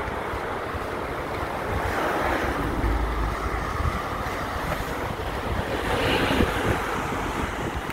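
Wind buffeting the microphone: a steady rushing noise with gusts, the heaviest rumbling blast about three seconds in.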